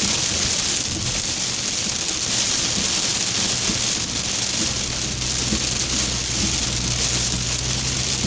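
Rain beating on a car, heard from inside as a steady, dense hiss. About five seconds in, a steady low hum joins beneath it.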